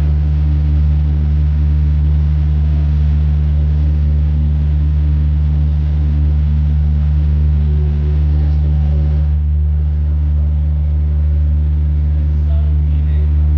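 Boat's engine running with a steady, loud low drone and hum.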